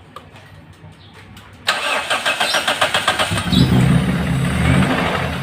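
Toyota 4A-GE twin-cam four-cylinder engine cranked on the starter with a sudden rapid chugging, catching about a second and a half later and then running. The engine has just been reinstalled after a connecting-rod bearing repair.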